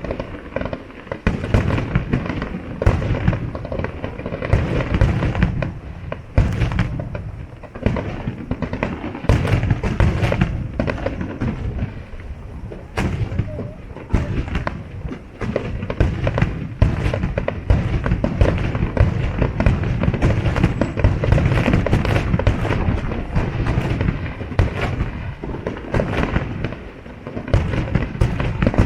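Fireworks display: a continuous barrage of sharp bangs and crackles from bursting aerial shells, several a second, over a heavy low booming.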